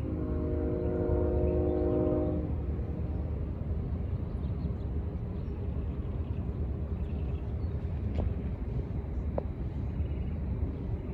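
Union Pacific SD70M diesel locomotive's horn sounding a steady chord that cuts off about two and a half seconds in, over the low rumble of the locomotives and freight train rolling past, which carries on after the horn stops.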